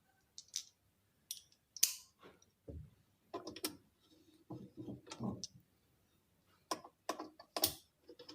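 Open-end wrenches (spanners) clinking and clacking against each other as they are sorted by size: irregular sharp metal clicks, with a few duller knocks in the middle.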